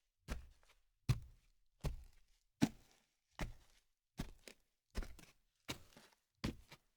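Footsteps walking at a moderate, even pace: about nine sharp steps, roughly one every three-quarters of a second.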